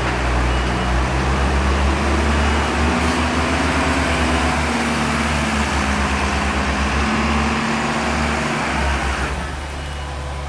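Hino dump truck's diesel engine running hard as it drives past close by, loud and steady, then dropping in level about nine seconds in as it moves on.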